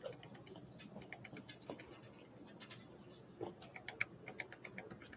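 Small birds pecking and tapping at food: light, irregular clicks, with a quick run of taps about four seconds in.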